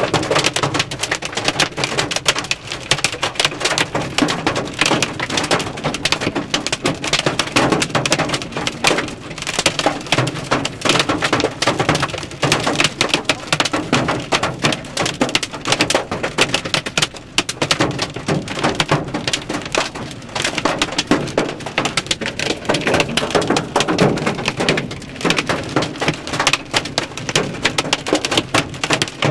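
Heavy rain drumming on a car's windshield and roof, heard from inside the cabin as a dense, steady patter with no let-up.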